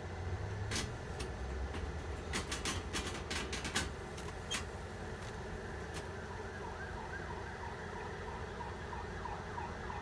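Fork tapping and clicking against a metal stovetop toaster plate on a gas hob as burning toast is turned: about a dozen sharp clicks in the first four seconds, over a low steady hiss. In the last few seconds a faint warbling tone rises and falls about twice a second.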